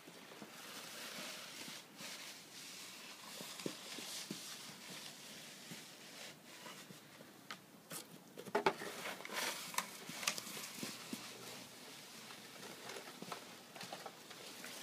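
Child's plastic snow shovel scraping and scuffing on a snowy driveway, in irregular strokes with a louder cluster about nine seconds in, over a steady hiss.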